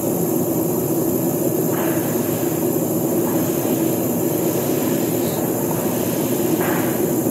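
A steady mechanical drone with a constant hum, with no change in level. Two faint brief rustles sound over it, about two seconds in and again near the end.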